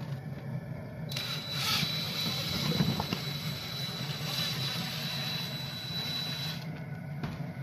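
Cordless drill spinning a welded flat-stock paddle stirrer in a kettle of boiling scrapple mix. A steady high motor whine comes in suddenly about a second in and cuts off near the end, over a steady low hum.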